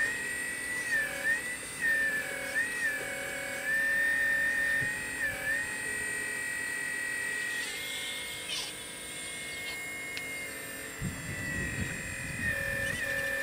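Hydraulic pump motor of a radio-controlled scale CAT 6015B excavator whining steadily, the pitch dipping briefly several times as the boom and bucket work. Near the end, a short scraping crunch as the bucket scoops into the soil.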